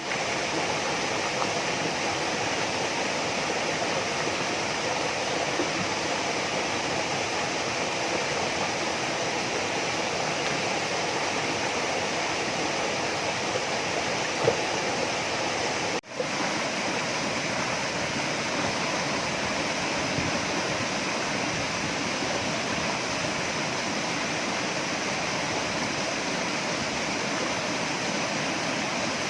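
Steady rush of water pouring over a waterfall, broken off for an instant about halfway through.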